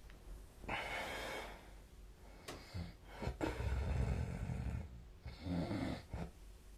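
A sleeping person snoring: a breathy breath about a second in, then a longer, low snore in the middle, and a shorter one near the end.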